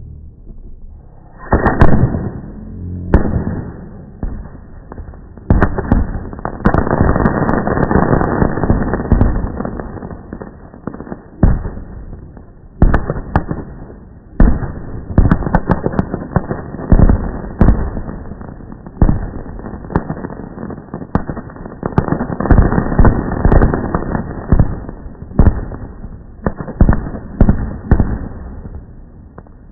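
Fireworks going off in a long, dense run of bangs and crackling bursts, slowed down with the slow-motion video so the reports come out deep and drawn out. The first second and a half is quiet, then bangs follow every second or less, thickest in two stretches of rapid fire.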